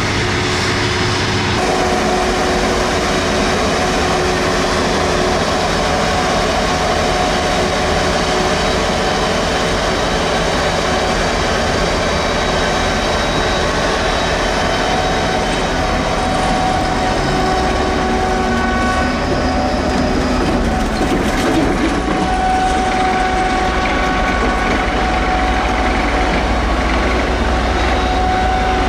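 Forage harvester and tractor engines running steadily while chopping maize: a loud, continuous heavy-machine drone with a few constant tones. The sound changes abruptly about two seconds in.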